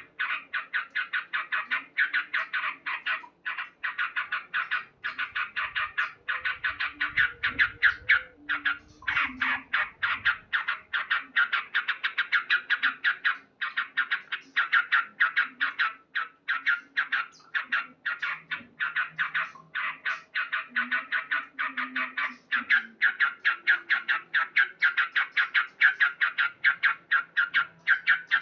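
Male yellow-vented bulbul (trucukan) calling loudly in a fast, steady series of short chattering notes, several a second, without pause.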